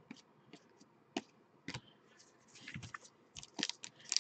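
Trading cards being handled: a few light clicks and snaps as the cards are sorted, then the wrapper of a card pack crinkling as it is picked open, growing busier near the end.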